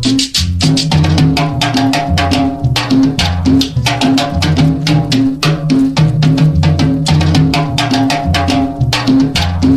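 Sonidero-style cumbia music: a fast, even pattern of hand percussion over a bouncing bass line, with a held melody line coming in about a second in.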